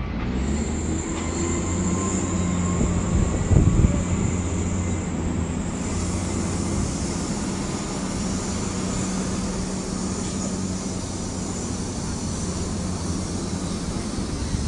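Heavy diesel engine running steadily at low speed, with a few metallic clanks about three and a half seconds in.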